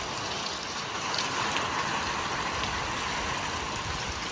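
Thunderstorm wind and rain making a steady rushing hiss, with uneven low rumbling from gusts.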